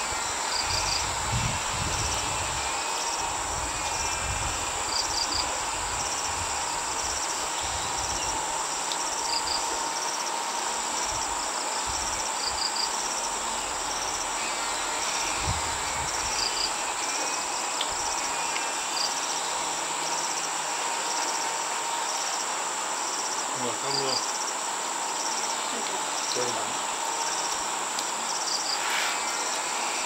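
Insects chirping in the garden vegetation: a steady high-pitched buzz with short chirps repeating about once a second.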